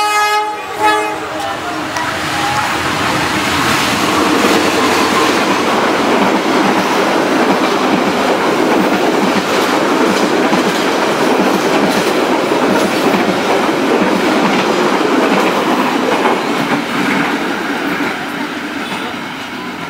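A diesel locomotive's horn blast ending, with a short second toot about a second in, then a CC201 diesel-electric locomotive and its passenger coaches passing close at fairly high speed: a loud steady rumble with wheels clattering over the rail joints, fading near the end as the train moves away.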